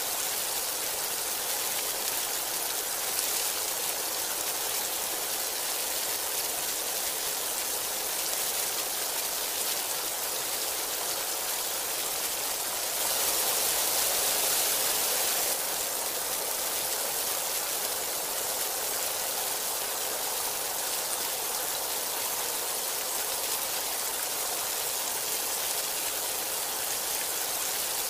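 Heavy rain pouring steadily, an even hiss of a downpour that grows louder for a couple of seconds about halfway through.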